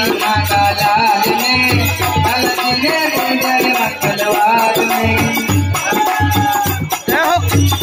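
Live Hindu devotional folk music (a Hanuman bhajan): a melody line over fast rattling hand percussion and a drum, with no break.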